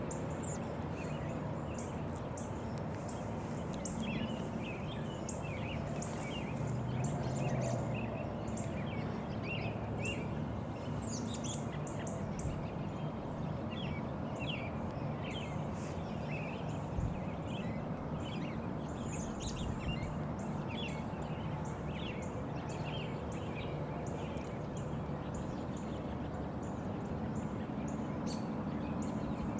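Small birds chirping and calling in many short notes, over a steady low outdoor rumble.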